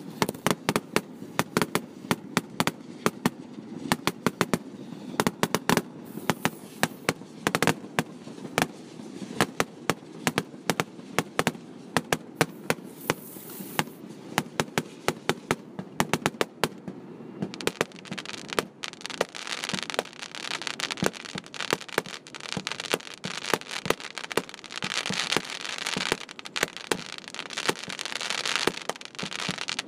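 Fireworks grand finale recorded by a phone: a rapid, unbroken string of bangs, several a second. A little after halfway a thick hiss builds up beneath the bangs.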